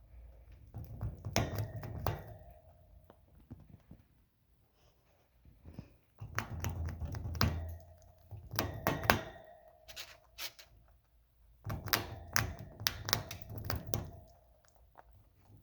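An animal chewing a crunchy treat: three bouts of rapid crunching with short pauses between.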